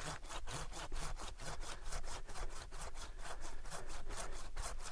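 Hand pruning saw cutting through the trunk of a small sapling in quick, even back-and-forth strokes, about five a second, making an angled back cut for a hinge cut.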